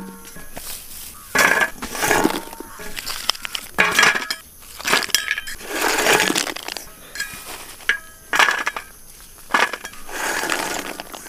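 Firecrackers in paper and plastic wrappers being handled and dropped into a pit in sandy ground: a run of short rustling, crunching knocks, roughly one a second.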